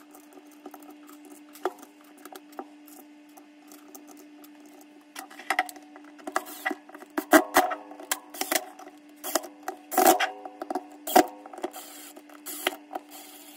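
Screws being driven back into a hammer drill's plastic housing with a cordless drill/driver: a steady hum, with sharp clicks and knocks of screws and tools that come thicker in the second half.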